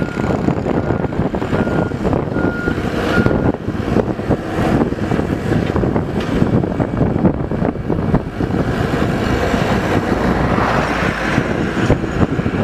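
Mini excavator's diesel engine running steadily as the machine works. A reversing alarm beeps at one steady pitch about every 0.7 seconds and stops about three seconds in.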